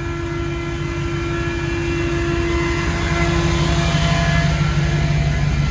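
Engine of a lifted Toyota 4x4 truck crawling slowly up a rutted sand climb, a steady engine note that grows louder as the truck comes close and passes.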